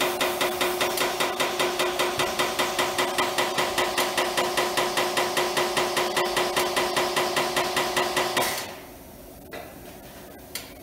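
Compressed air rushing into a tire through the valve stem with its core removed, to seat the beads, chattering in rapid even pulses of about five a second over a steady tone; it cuts off about eight and a half seconds in. The beads seat softly, with no pop heard.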